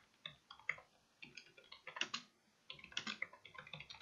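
Computer keyboard being typed on: quick, irregular runs of keystroke clicks, with a pause of about a second near the start.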